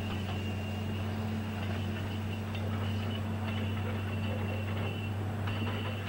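Hydraulic impact hammer on a tracked excavator working against rock, heard as a steady low mechanical drone with a fine continuous rattle.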